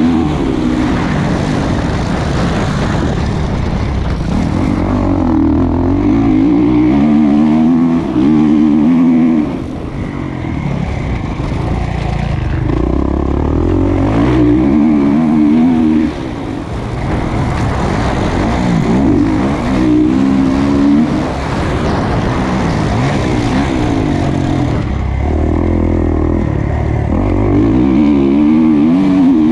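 A 2020 Kawasaki KX450's single-cylinder four-stroke engine, heard up close on board, revving up and down repeatedly as it is ridden hard around a motocross track. The throttle is briefly shut off twice.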